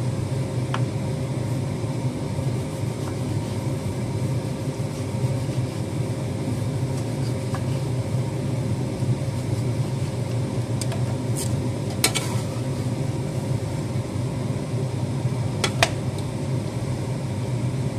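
Steady low mechanical hum of a running kitchen appliance, with a few sharp knocks as a knife and a plastic container are handled on a wooden cutting board, the loudest about twelve seconds in and near the end.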